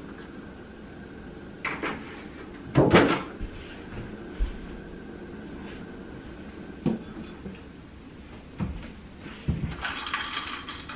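Kitchen clatter of knocks and thuds, the loudest about three seconds in, as a milk jug is set down on the counter and a cupboard door is opened and shut. Near the end comes light clinking as a drink is stirred in a glass.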